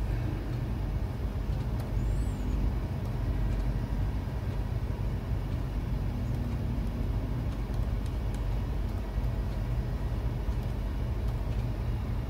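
Steady low rumbling background noise, even throughout.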